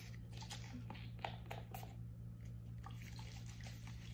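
Faint scattered clicks and taps of a fragrance mist bottle being handled, over a steady low electrical hum.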